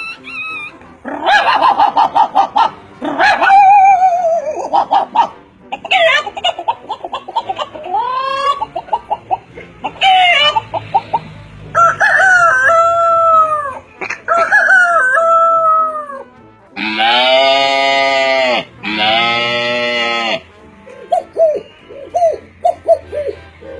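A man imitating animal calls with his voice, a string of different calls that include rooster crowing and hen clucking. Two long, lower calls come about two-thirds of the way through, followed by quick short repeated notes near the end.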